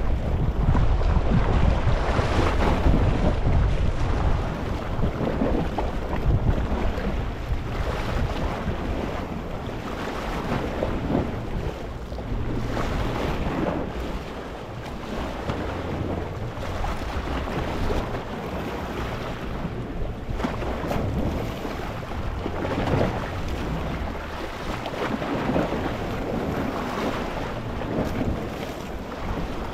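Gentle sea waves washing over a rocky shore, swelling and ebbing every few seconds, loudest in the first few seconds, with wind rumbling on the microphone underneath.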